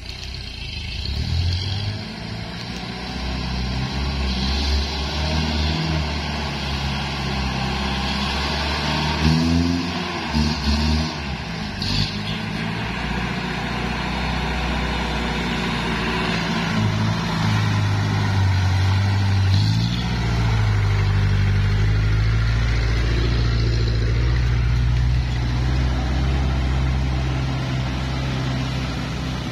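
A four-wheel-drive pickup's engine working under a heavy load of oil palm fruit bunches on a muddy track. It revs up and down in the first half, then runs steadier and louder from a little past halfway.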